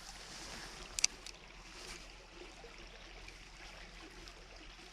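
Small creek running: a faint, steady rush of water, with one short sharp click about a second in.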